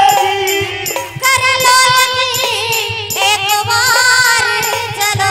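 Live Hindi devotional song sung into microphones, with long, wavering held notes over a steady low drum beat and regular high jingling percussion strokes.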